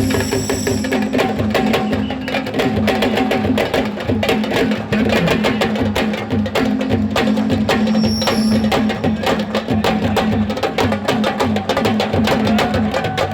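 Music driven by fast, dense drumming: many rapid drum strokes over held low tones, at an even loudness throughout.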